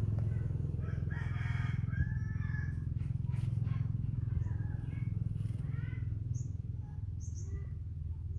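Bird calls over a steady low rumble: one long pitched call about a second in, lasting about a second and a half, then several shorter calls and high chirps later on.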